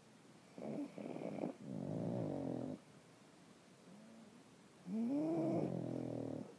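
Two pugs snoring. A rattling snore about half a second in runs into a longer, pitched snore. After a pause, a louder snore about five seconds in rises and then falls in pitch.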